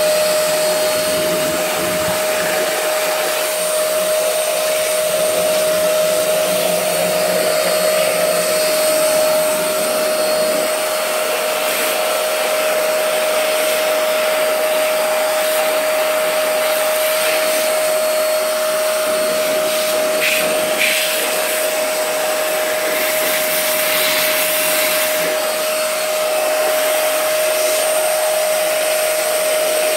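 Ash vacuum cleaner running steadily, its motor giving a constant whine over the rush of air, sucking ash out of a pellet boiler's ash pan and firebox. A few short rattles come about two-thirds of the way in.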